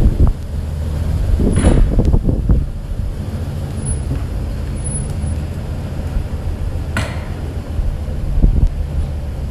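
Car engine running with a steady low rumble, a few knocks about two seconds in and a sharp click near the end.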